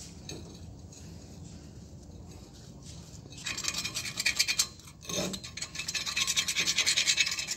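Rapid scratchy scrubbing on the flange of a vehicle axle shaft, cleaning old oil and grease off it with solvent. It starts about three and a half seconds in, pauses briefly near five seconds, then continues.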